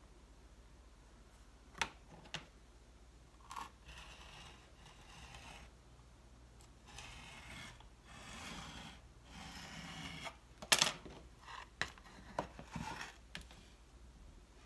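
Clear plastic grid ruler being handled on a work table over a clay slab: scattered plastic clicks and taps, with stretches of soft sliding scrape between them. The sharpest clack comes a little past the middle.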